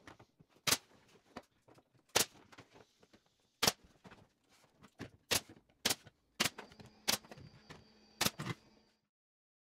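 Pneumatic nailer firing nails into quarter-round trim along a cabinet kick plate: about ten sharp snapping shots, irregularly spaced a half-second to a second and a half apart.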